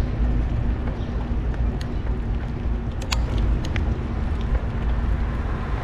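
Steady low rumble of wind and road noise from riding a bicycle along a city street, with a few sharp, irregular clicks and a faint steady hum beneath.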